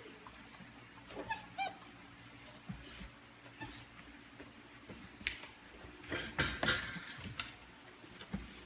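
Formosan mountain dog puppy whining in a thin, high, wavering voice with a few short cries for the first three seconds, then the crate's wire door rattling as it is opened about six seconds in.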